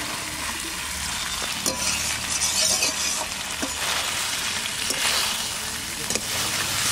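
Potato chunks sizzling as they are fried in hot mustard oil and cooked-down spice paste in a metal kadai, with a metal spatula scraping and clicking against the pan as they are stirred.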